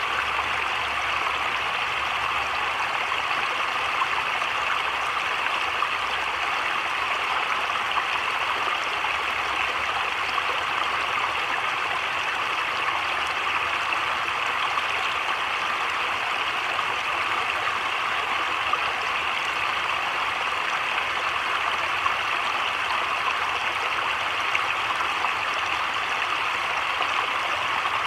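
Heavy rain falling steadily on a creek and the leaves around it: an even hiss with an occasional sharper tap.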